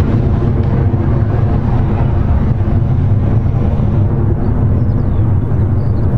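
Electron rocket's nine Rutherford first-stage engines firing during the climb off the pad: a loud, steady low rumble.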